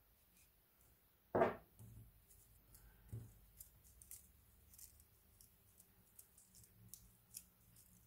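Fingers handling and pressing small rolled-paper quilling pieces: faint crinkling and ticking of paper, with one louder short knock about a second and a half in.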